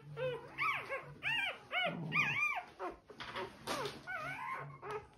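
A four-day-old German Shorthaired Pointer puppy crying in a rapid series of short, high cries, each rising then falling in pitch, about three a second, growing weaker after about three seconds. These are distress cries from the puppy as its dewclaws are being removed.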